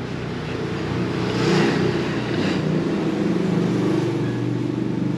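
An engine running steadily, growing louder about a second and a half in.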